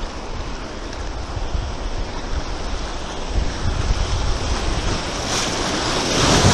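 River water rushing and splashing against an inflatable boat running through rapids, with wind buffeting the microphone. The splashing grows louder near the end as the boat meets a stretch of whitewater.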